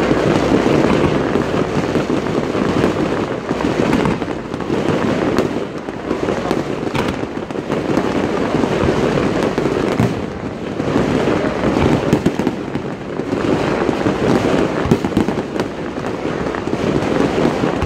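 Aerial fireworks going off in a loud, dense, continuous barrage of bangs and crackling, with no pause.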